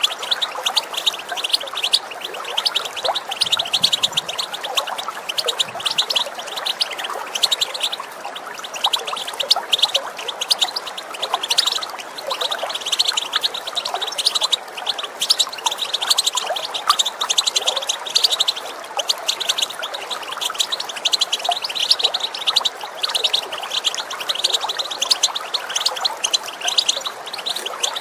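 European goldfinch calling and twittering in quick chirps, over the steady rush of running water.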